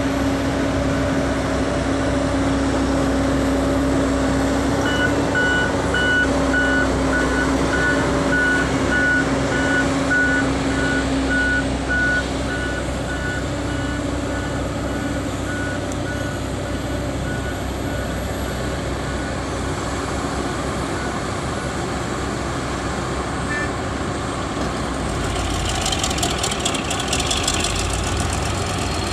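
Sumitomo SH350 hydraulic excavator's diesel engine running steadily under digging load. A warning beeper pulses for about fifteen seconds, starting about five seconds in, and a short burst of clattering comes near the end.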